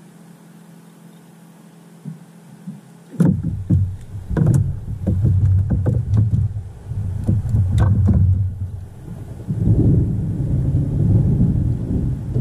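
Thunder: a sudden crack about three seconds in, then a loud, deep, rolling rumble with scattered crackles that swells and fades and keeps going.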